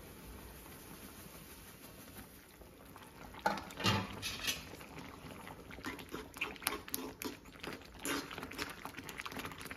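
Semolina poured into boiling water in a metal kadai, with a faint steady hiss from the boiling water. From about three and a half seconds in, a spoon stirs the mixture in quick, irregular strokes, scraping and clicking against the pan.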